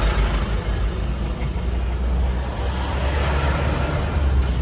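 Steady low rumble of a moving vehicle heard from inside the cabin: engine and road noise with a hiss of air over it.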